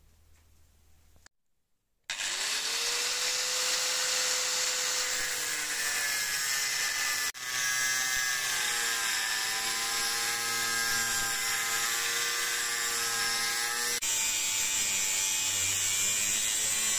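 Angle grinder with an abrasive cut-off disc cutting through the steel outer ring of an old locomotive bearing: about two seconds in it spins up with a rising whine, then runs as a steady whine with a grinding hiss as the disc bites into the ring, broken once by a short dip partway through.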